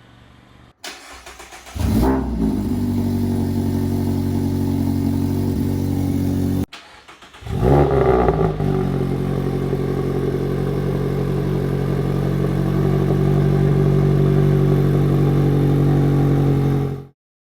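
A Mazda ND2 Miata's 2.0-litre four-cylinder engine starting and settling into a steady idle, heard through its exhaust, in two separate clips: the first starts about two seconds in, and the second about seven and a half seconds in, flaring briefly louder before it settles.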